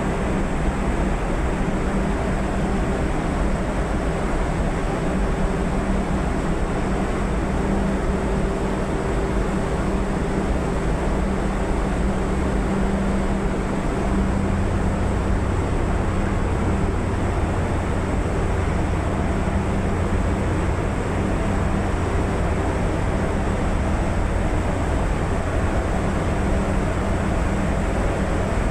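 A ship's steady low engine drone mixed with rushing, washing water as seawater comes onto the deck. The low hum grows stronger about halfway through.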